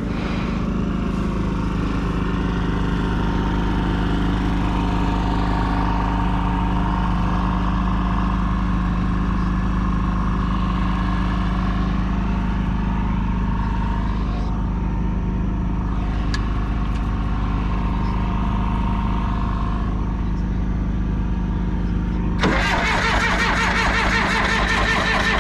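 John Deere 450C crawler dozer's diesel engine running steadily. Near the end a louder, rapid metallic clattering sets in over the engine.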